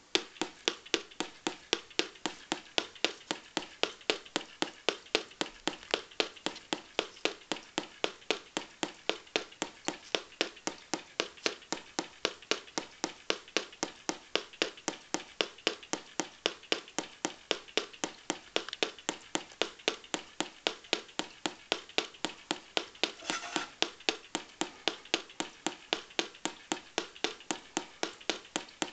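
Steady, evenly spaced sharp clicks, about three a second, starting suddenly and played through small LED water-dance speakers, with one brief louder noise near the end.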